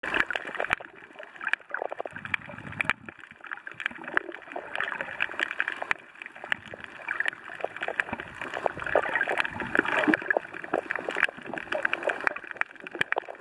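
Underwater gurgling and bubbling of water, with many scattered sharp clicks and crackles throughout.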